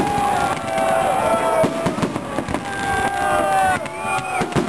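Fireworks salute: repeated bangs and crackling as shells burst overhead, with long whistling tones from the rising charges running over them, one gliding upward near the end.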